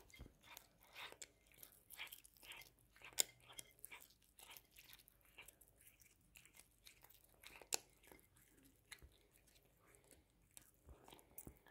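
A cat chewing and tearing at salmon skin: a quiet, irregular run of wet clicks and crunches, the sharpest about three seconds in and again near eight seconds.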